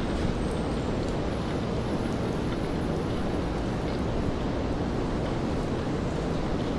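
Steady rainfall on a city street mixed with traffic noise from wet roads: an even, constant rushing hiss with faint scattered ticks.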